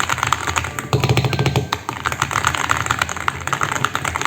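Fast continuous typing on a Vortex Series Xera 87 mechanical keyboard, a dense stream of key clicks.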